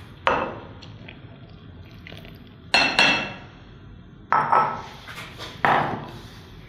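Glass and ceramic mixing bowls knocking and clinking against each other and on a stone countertop as they are handled and set down. About six sharp clinks with short ringing, two close pairs in the middle.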